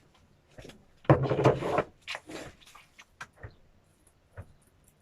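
Cutlet mince being mixed by hand in a bowl: a loud scraping rustle about a second in, then a series of light knocks and clicks.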